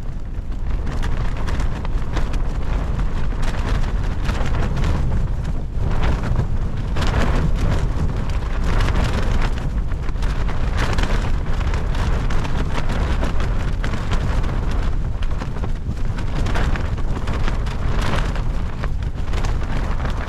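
Wind gusting and rain driving against a tent, a loud steady rush broken by frequent irregular sharp spatters.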